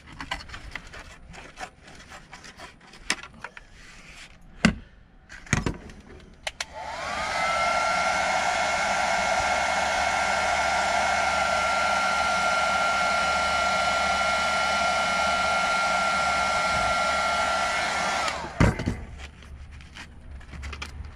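A few sharp clicks and snips of scissors trimming plastic. About seven seconds in, an electric heat gun is switched on: its fan whine rises to a steady pitch over a loud rush of hot air, runs for about eleven seconds, then winds down as it is switched off, followed by a sharp knock.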